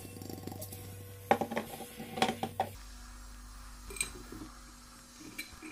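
Soft knocks and thumps of whole tomatoes being packed by hand into a glass jar, bumping against the glass and each other, with a cluster of them between about one and three seconds in and a few fainter taps later.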